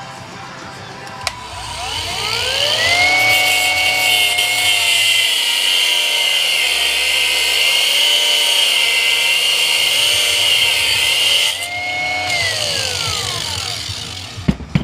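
Electric grinder clicked on, spinning up to a steady high whine and grinding metal with a hiss. Near the end it eases briefly, then winds down.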